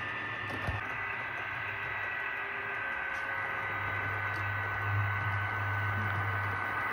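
Two battery-powered HO-scale model diesel locomotives running, their LocoFi sound decoders playing diesel engine sound through small onboard speakers: a steady hum with a higher steady whine, swelling slightly after the middle, and a few light clicks of wheels on the track.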